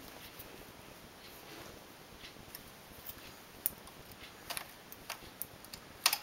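Light, irregular clicks of a latch tool and the metal latch needles of a knitting machine's needle bed as stitches are bound off one by one with a chain cast-off, with a sharper click near the end.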